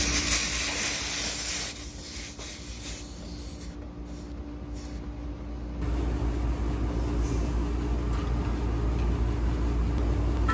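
A short hiss of refrigerant escaping as a gauge hose is screwed onto an air-conditioner's Schrader service port, fading after a second or two. Underneath, the steady hum of rooftop AC condensing units running, louder from about six seconds in.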